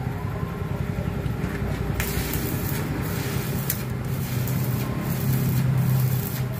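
Steady low mechanical hum throughout, with a few sharp metallic clicks of a screwdriver and pliers working at the motor's terminal screws, two of them about two seconds and three and a half seconds in.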